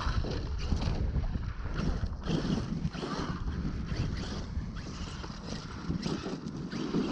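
Wind buffeting the microphone, with irregular crunching and scrabbling from the Arrma Kraton 8S RC truck's tyres driving over loose dirt and rock.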